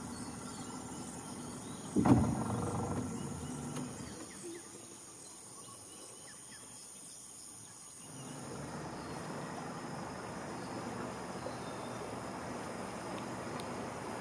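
Steady high-pitched drone of rainforest insects, broken about two seconds in by a sudden loud burst that fades over a couple of seconds. From about eight seconds a boat motor runs low and steady.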